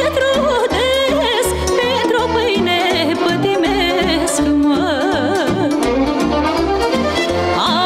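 Instrumental break in a Moldovan folk song: a lead melody with wide vibrato over a steady oom-pah accompaniment that alternates bass notes and chords.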